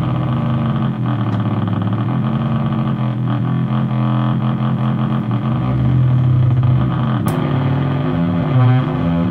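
Modular synthesizer playing a low, sustained drone with shifting overtones, like distant thunder. Its filter is being modulated by the audio of a Thereguin. Near the end the tones begin to warble up and down.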